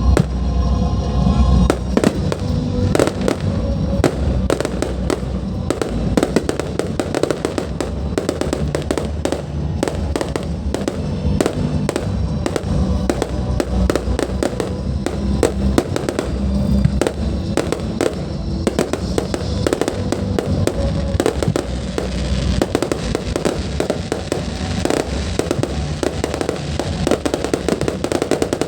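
Fireworks display going off continuously, a dense run of rapid bangs and crackles with no break, with music playing underneath.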